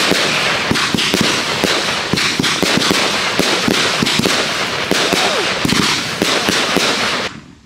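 Aurora firework battery firing a rapid barrage of shots: many sharp bangs over a dense crackle from the bursting stars. It cuts off suddenly near the end.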